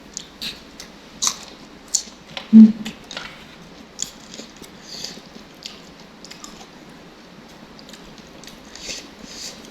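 Close-up eating sounds: a person biting and chewing food near the microphone, with small clicks and crackles throughout and one loud dull knock about two and a half seconds in.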